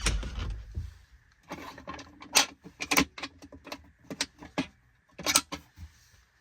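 A low thump, then a string of sharp metallic clicks and clacks as hardware is handled, loudest about two and a half, three and five and a half seconds in.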